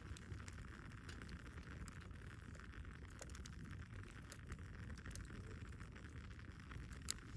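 Wood fire crackling faintly, with scattered small pops over a low rumble and one sharper pop near the end.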